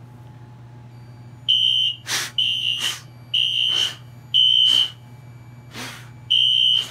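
Wheelock NH fire alarm horn sounding in short pulses, about one a second, starting about a second and a half in, with one skipped beat near the middle. The panel is in audible walk test, and the owner takes the sounding to be caused by his taking the smoke detector off its base.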